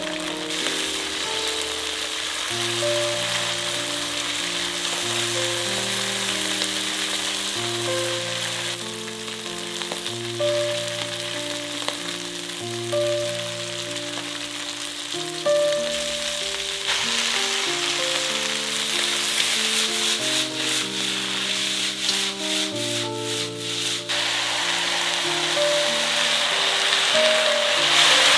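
Vegetables and noodles sizzling in a hot wok, with short stirring clatters in the second half. A slow background melody of held low notes plays throughout.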